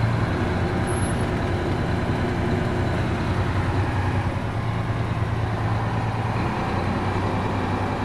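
Big rig truck's diesel engine running steadily, heard from inside the cab, already warmed up.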